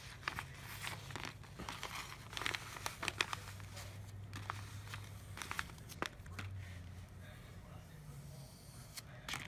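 Crinkling and rustling of small plastic toy packaging being picked open by hand, with scattered light clicks, busiest in the first six seconds.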